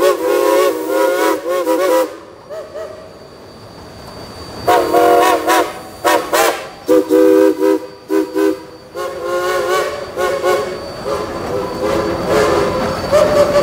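Steam locomotive whistles sounding a salute in a series of short toots and longer blasts, several pitches at once, with a lull of a couple of seconds early on. Toward the end the locomotives rolling past give a steady rumble under the whistling.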